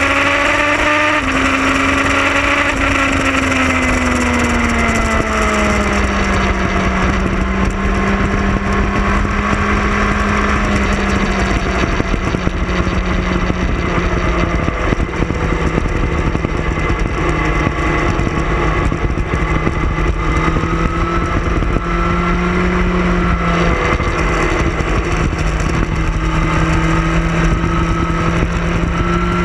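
Motorcycle engine running at road speed, heard from the rider's own bike with heavy wind rumble on the microphone. The engine note falls over the first few seconds, then holds fairly steady and drops a step about 24 seconds in.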